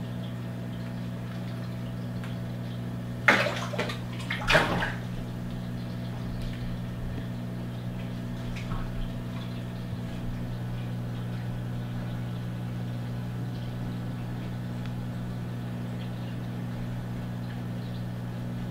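Steady low hum of the aquarium's equipment with water moving in the tank. Two brief splashes at the water's surface come about three and four and a half seconds in, as the fish feed on minnows dropped into the tank.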